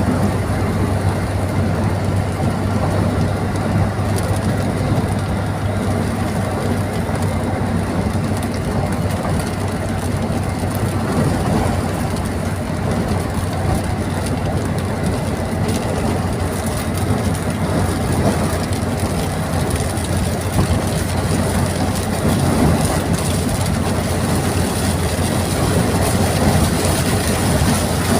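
Steady drone of a moving vehicle, a constant low hum under an even wash of road and wind noise.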